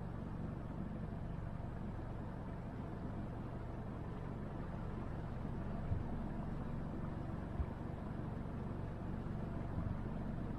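Motorboat engine running steadily, a low rumble, with a few brief low knocks about halfway through and near the end.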